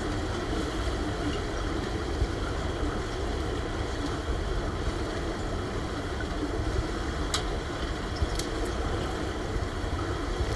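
Steady low rumble and water noise of a swimming pool heard underwater, with a few faint clicks in the second half.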